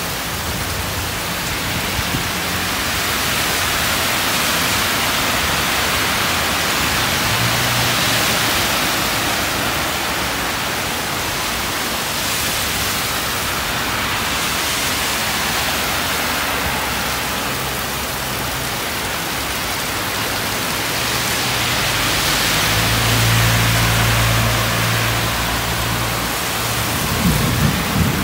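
Heavy tropical downpour: a steady, loud hiss of rain falling on a road, swelling twice as cars hiss past through the water on the asphalt. About three-quarters of the way through a low rumble comes in for a few seconds, and there are a few sharp knocks near the end.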